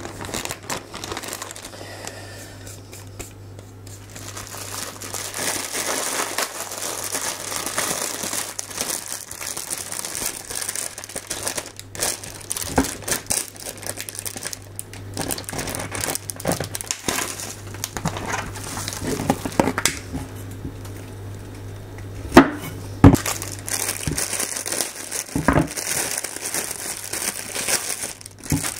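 Plastic bags crinkling and rustling as a zip-top bag of shredded vegetables is handled and mushroom packaging is pulled open and cut, with scattered clicks and two sharp knocks about three-quarters of the way through.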